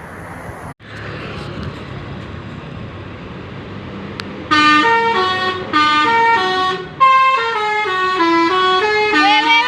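Tourist bus's telolet 'basuri' musical horn playing a tune in stepped notes: three short phrases starting about halfway through, then a longer unbroken run of notes. Before it, steady road noise.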